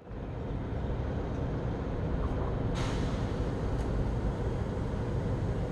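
Steady low rumble of background noise, with one short hiss a little under three seconds in.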